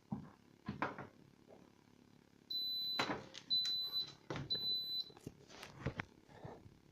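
Electronic beeper on an Atlant washing machine's control panel sounding three high, half-second beeps about a second apart, amid sharp clicks and knocks of the machine being handled.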